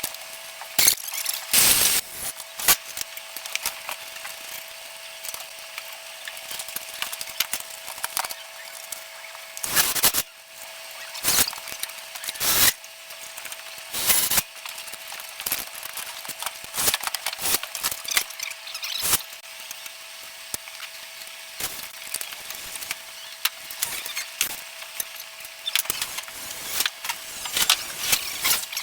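Hand tool work on copper plumbing: irregular sharp clicks and knocks, with a few short scraping strokes. A steady thin hum runs underneath.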